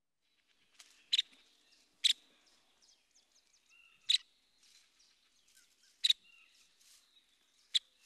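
Recorded Nuttall's woodpecker giving short, sharp calls, five loud ones spaced one to two seconds apart, with fainter calls in between.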